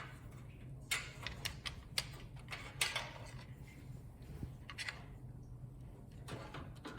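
Scattered light clicks and taps of plastic PC case fans and their cables being handled and positioned on the case front, over a low steady hum.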